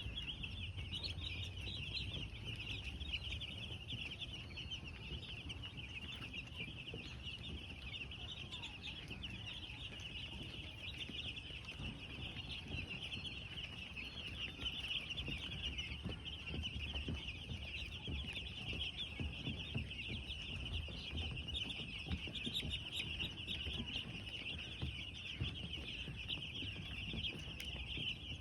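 A flock of broiler chicks peeping without a break, many high chirps overlapping, over a low rumble.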